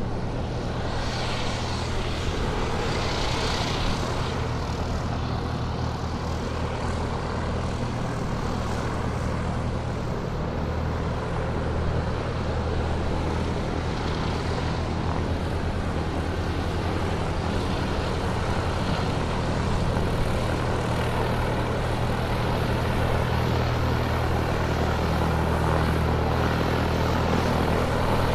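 Airplane taxiing on the ground, its engines running at a steady low power: an even drone with a deep hum under a wide rushing noise, growing slightly louder toward the end.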